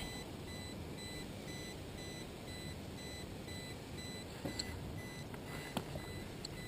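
Faint, high-pitched electronic beeping, short beeps repeating evenly, over a low hiss, with a few light clicks in the second half.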